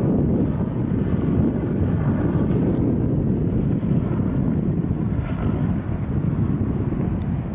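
Two-blade Bell military helicopter flying past, its rotor and turbine giving a steady loud drone with a faint whine in it.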